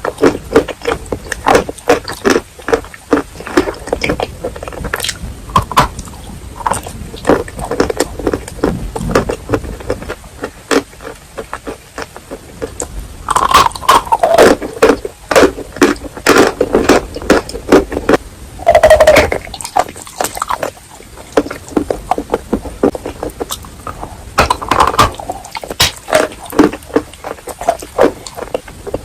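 Close-miked biting and chewing of wet chalk with clay paste: a dense run of crisp crunches and snaps, busiest and loudest through the middle and again near the end.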